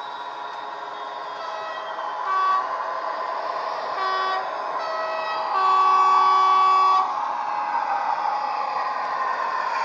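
ESU DCC sound decoder in a model French diesel locomotive, playing a 16-cylinder French diesel sound file through a small speaker: the engine runs steadily while the two-tone horn sounds several short notes, alternating low and high, then one long blast of about a second and a half near the middle.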